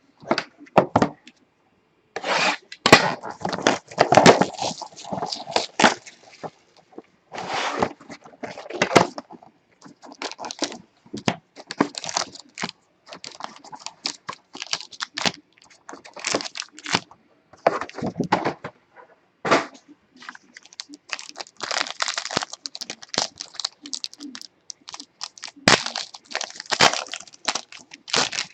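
Foil trading-card pack wrapper being torn open and crinkled, with cards being handled: a run of irregular crackling and tearing noises.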